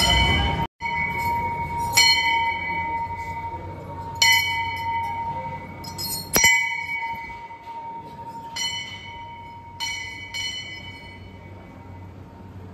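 Hanging metal temple bell rung by hand, struck about six times, roughly every two seconds and then a quick pair near the end. Each strike rings on, with the hum carrying between strokes.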